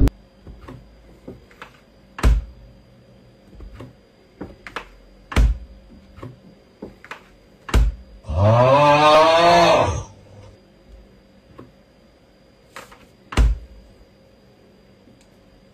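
Scattered light taps and knocks at irregular moments. About eight seconds in comes a long wavering vocal cry lasting about two seconds, the loudest sound.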